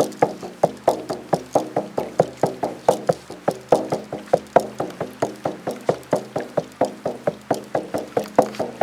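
Shaman's frame drum beaten in a fast, steady rhythm, about four to five strokes a second, each stroke ringing briefly.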